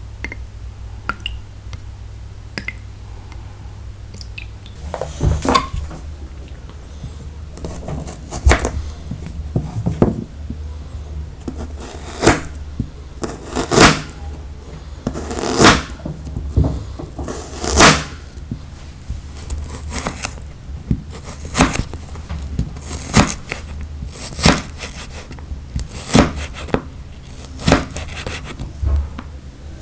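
Food-preparation handling sounds: short knocks and scrapes, about one every second or two, starting about five seconds in, over a low steady hum.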